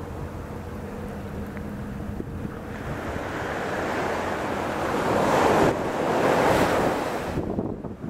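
Small waves breaking and washing up a sandy beach in a steady rush of surf. It swells over several seconds, is loudest past the middle, then drops off sharply near the end.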